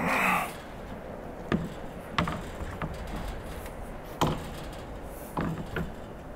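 Wooden gate frame knocking and clunking as it is handled on its hinges and swung shut against the post: about six sharp wooden knocks at uneven intervals, with a short scuffing noise at the very start.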